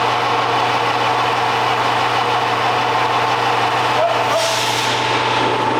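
1951 Packard's straight-eight engine running steadily just after being started, with a brief hiss about four seconds in.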